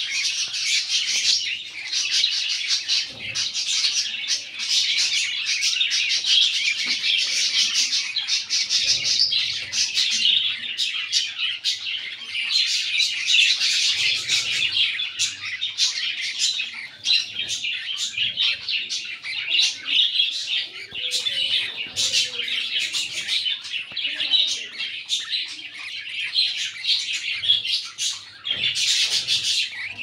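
A flock of young budgerigars chirping all together, a dense, unbroken chatter of many overlapping high chirps.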